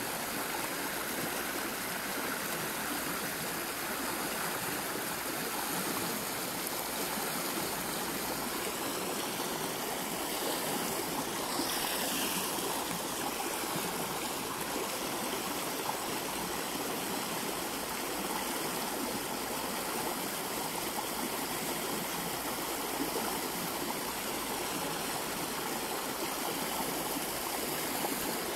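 Steady rushing of a muddy creek flowing fast over shallows, running high after rain.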